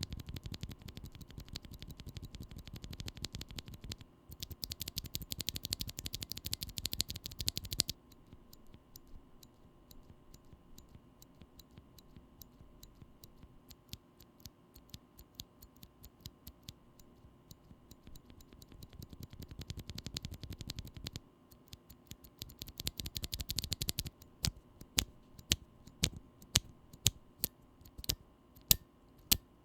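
Typing on lubed Glorious Panda tactile mechanical keyboard switches: quick bursts of keystrokes, a quieter stretch of sparse presses, another burst, then single keys pressed about twice a second near the end. The leaf-spring tick is easy to pick up even with the switches regularly lubed.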